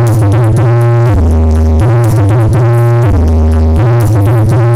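Electronic dance music played very loud through Brewog Audio's 'sound horeg' rig of stacked speakers, with heavy sustained bass notes that change every second or two under a synth melody.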